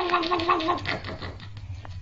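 An animal's long, held, slightly wavering cry that stops just under a second in, followed by quieter sound with a couple of faint clicks.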